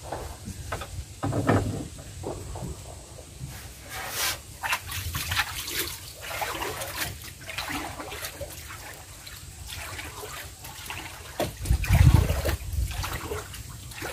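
Water sloshing and lapping against the hull of a small wooden boat, with scattered irregular splashes and knocks and a louder low thump about twelve seconds in.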